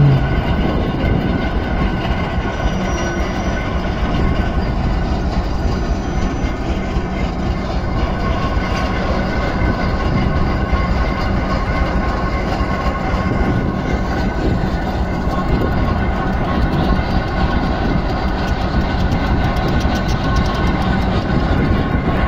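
Railway diesel engine running steadily, a continuous heavy drone that holds the same pitch throughout.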